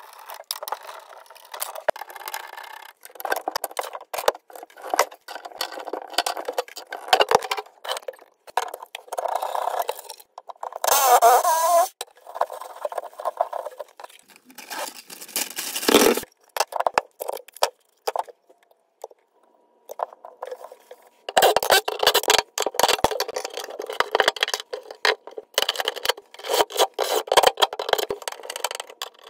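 Clattering, clicking and scraping of tools and plastic drain fittings being handled while a garbage disposal and P-trap are installed, in short bursts with pauses. About eleven seconds in there is a brief louder sound with a wavering pitch.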